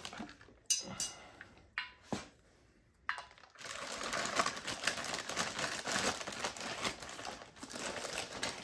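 Clear plastic parts bag crinkling and rustling as it is handled, about four seconds in and on to the end. Before that, a few light knocks and a short quiet gap.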